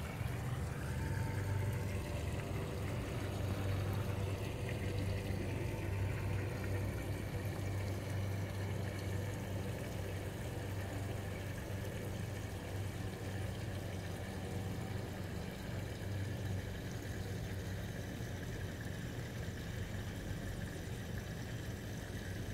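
A steady low hum of running machinery, even throughout.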